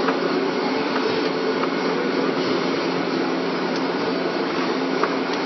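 Refrigeration unit of a fried ice cream pan machine running: a steady hum under an even fan noise, with a few faint ticks.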